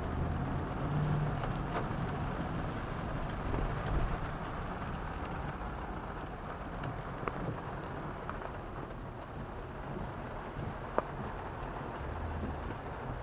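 Rain falling on a car's windshield and roof, heard from inside the cabin over the low hum of the car. A few sharp ticks stand out, the clearest near the end.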